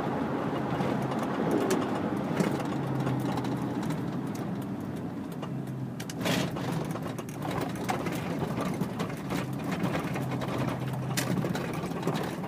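Chevrolet Silverado's exhaust through hollowed-out glass pack mufflers, a steady low drone heard from inside the cab while driving. A couple of short knocks come about halfway through and near the end.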